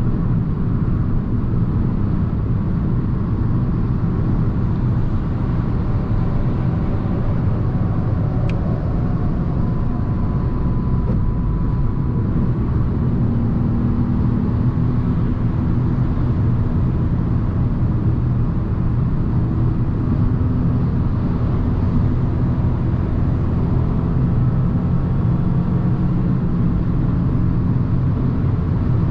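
Steady cruising drone of a 2022 Fiat 500 1.0 mild-hybrid three-cylinder at motorway speed, engine, tyre and wind noise blended into one low, even rumble. A single brief click comes about eight seconds in.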